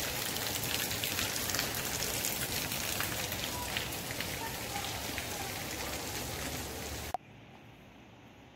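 Steady hiss and patter of falling water droplets on plants and soil, full of fine crackling ticks. It cuts off suddenly about seven seconds in, leaving only a faint hiss.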